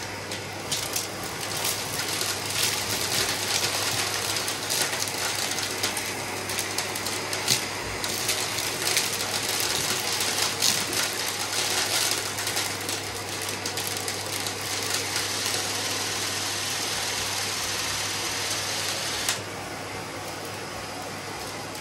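Vacuum cleaner running with a steady motor hum and hiss, broken by frequent clicks and crackles like debris being sucked up; about nineteen seconds in the hiss drops and it runs more evenly.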